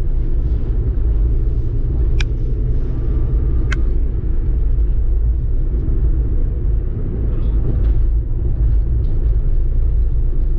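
Car driving along a road, heard inside the cabin: a steady low rumble of engine and tyre noise, with two short clicks about two and three and a half seconds in.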